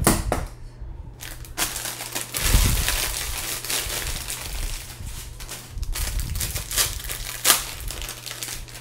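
Pink metallic foil wrapping crinkling and crumpling in the hands as it is opened, starting about a second and a half in.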